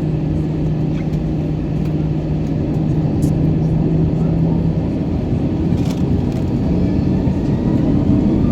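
Airbus A321 jet engines heard from inside the passenger cabin as a steady low hum. About five seconds in, the hum's pitch steps up, and it grows a little louder toward the end, with a faint rising whine.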